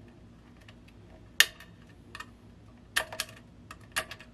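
Sharp metallic clicks and taps, five or so at uneven gaps, the loudest about a second and a half in: replacement cage nuts being worked into the square holes of the Marshall JCM800 amplifier's metal chassis.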